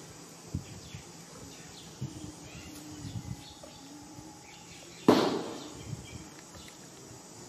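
Outdoor background of insects and birds, with a few soft knocks and one much louder thump about five seconds in.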